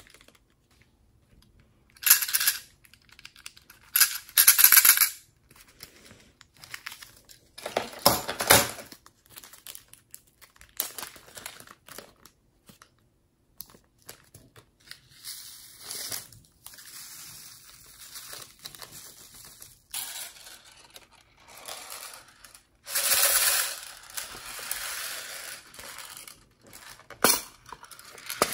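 Small plastic bags crinkling as sequins, glitter and beads are shaken out of them into a glass tray, in a string of separate bursts a second or two long with quieter gaps between.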